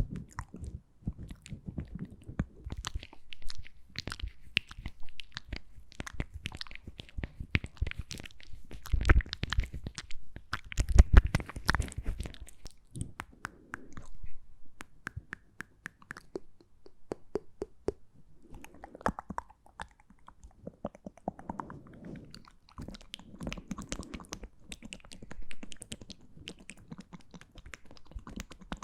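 Close-miked ASMR mouth sounds: dense, irregular wet clicks and smacks of lips and tongue, with a few heavier, deeper ones near the middle.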